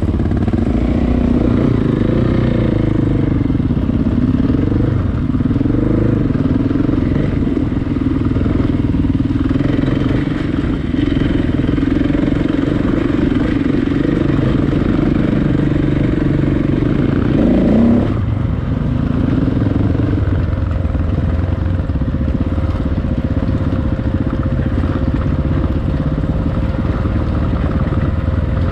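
KTM 690 single-cylinder dual-sport motorcycle running off-road, its engine note rising and falling with the throttle. About eighteen seconds in it climbs sharply, then drops off suddenly and runs on lower and steadier.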